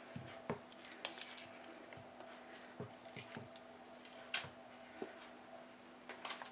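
Silicone mould being flexed and peeled off a chocolate-coated block: faint soft squishing and rustling with scattered small clicks and taps, the sharpest about four seconds in.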